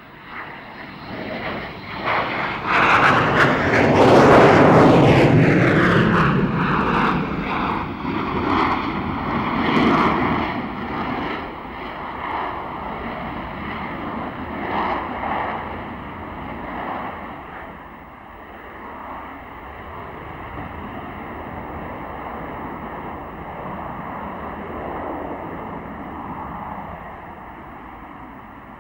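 Yakovlev Yak-141 VTOL jet's engines at close range: loud jet noise swelling to a peak about four seconds in, with a falling, sweeping whoosh as the aircraft passes. It then eases to a steadier, lower jet noise.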